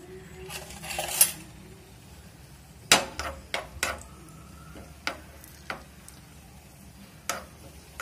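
Metal spoon stirring cashews frying in ghee in a small metal pan, clinking against the pan in a string of sharp knocks from about three seconds in. A brief hiss comes about a second in.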